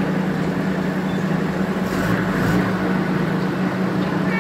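Motor vehicle engine idling: a steady low hum, with a brief hiss about two seconds in.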